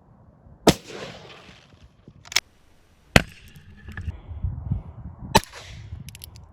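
JC Higgins Model 20 12-gauge pump shotgun firing: four sharp reports spread over about five seconds, the first and last trailing off in echo.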